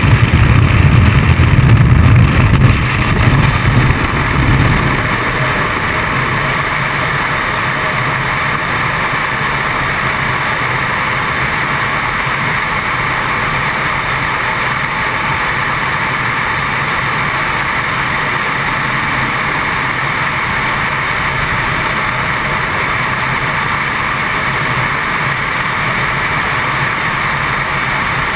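Loud rush of freefall wind buffeting a helmet-mounted camera's microphone. For the first four or five seconds a heavy low rumble from the aircraft and its slipstream at the open door dominates, then the wind settles into a steady, even hiss.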